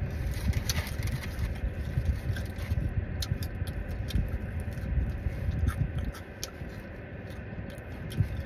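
Close-up chewing and lip-smacking on a fried chicken wing, with scattered small clicks, over a low steady engine rumble inside the car.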